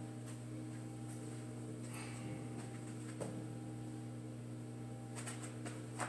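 Faint metallic clinks of a loaded barbell coming off a squat rack's hooks: a pair about five seconds in and a sharper one near the end, over a steady low hum.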